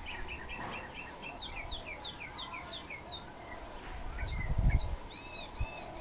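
Small songbirds chirping: a quick run of short, falling chirps for about three seconds, then a few arched, whistled notes near the end. A brief low rumble a little after four seconds in is the loudest sound.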